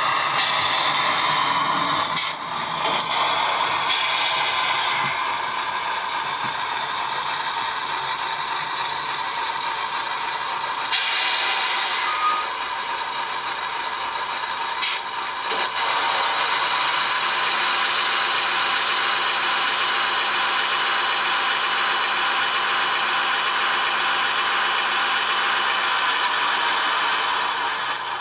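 O gauge model diesel shunter running slowly, a steady mechanical running rattle with a faint whine, and two sharp clicks, one about two seconds in and one about halfway.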